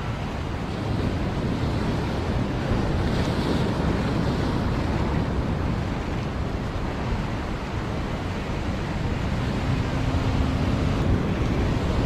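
Ocean surf washing and breaking over a rock platform as a steady rush, with wind rumbling on the microphone.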